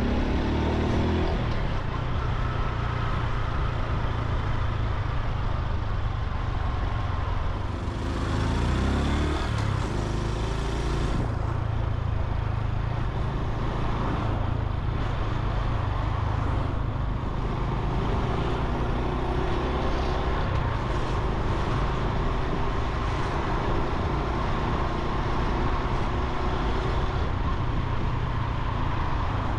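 Honda Super Cub C125's 125 cc single-cylinder engine and exhaust running on the move, its note rising and falling with speed and gear changes, over road noise. The pitch shifts about a second in and again around eight to eleven seconds.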